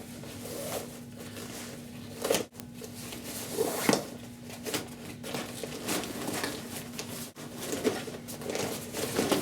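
Nylon backpack fabric rustling and a rope sliding as it is pulled out through webbing loops, in irregular scrapes and swishes.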